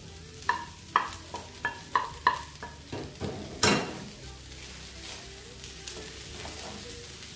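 A wooden spoon knocks about seven times against a small pan as scrambled eggs are scraped out, each knock ringing briefly. About three and a half seconds in, a loud clatter comes as that pan is set down on the gas stove. After that come steady stirring and a light sizzle as the eggs are mixed into fried rice frying in a pan.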